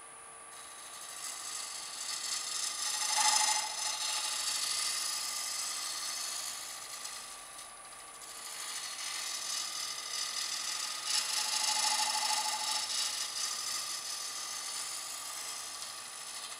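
Easy Wood Tools Easy Finisher's carbide cutter making finish cuts on a spinning hackberry disk on a wood lathe: a scraping hiss of the cut that swells and eases in two stretches, with a lull about eight seconds in, over the lathe's steady hum.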